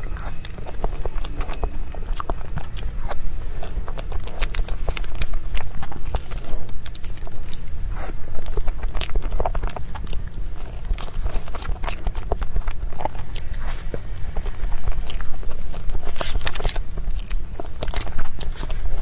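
Close-miked chewing and biting: a person eating a soft cream-filled towel roll cake, with many small wet mouth clicks over a steady low hum.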